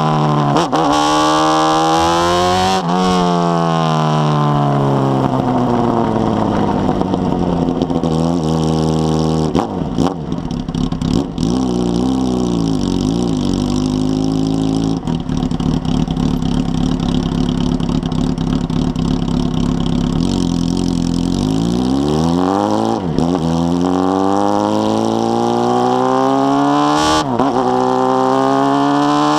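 Carbureted Honda Hornet 600 inline-four motorcycle engine riding through the gears: it revs up several times with a sudden drop in pitch at each upshift, runs down in pitch through a long roll-off, holds fairly steady for a while in the middle, then pulls hard again through two more upshifts near the end.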